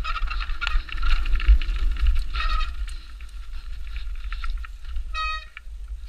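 Downhill mountain bike descending a rough trail: wind rumble on the mic, rattling knocks from the bike over the ground, and short high squeals from the disc brakes as they are dragged, one ending about a second in, another near the middle and one near the end.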